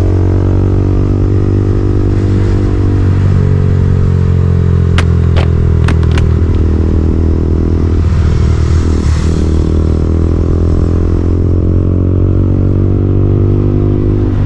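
KTM Duke 200's single-cylinder engine running steadily, its pitch drifting slightly down and back up. A few sharp clicks come about five to six seconds in.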